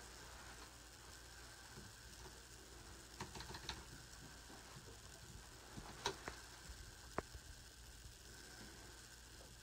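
Faint clicks of a computer keyboard being typed on: a short run of taps about three seconds in, then single clicks about six and seven seconds in, over a steady low hiss.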